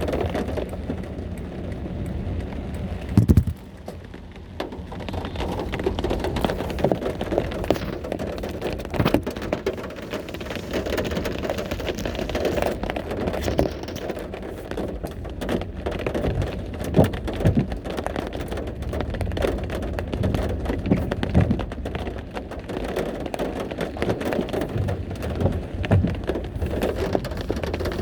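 Heavy rain falling and pattering on surfaces, with scattered louder drops tapping throughout. One loud knock sounds about three seconds in, and the rain is briefly quieter just after.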